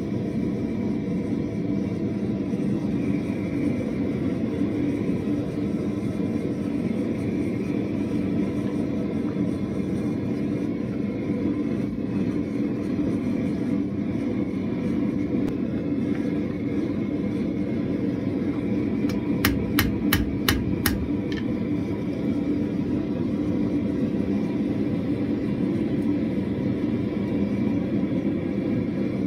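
Gas forge burner running with a steady roar while the metal heats. About two-thirds of the way in there is a quick run of about six sharp metal-on-metal strikes.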